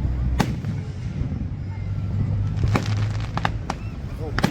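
Fireworks going off in sharp bangs, one shortly after the start, a quick run of several about three seconds in, and another near the end, over a steady low rumble.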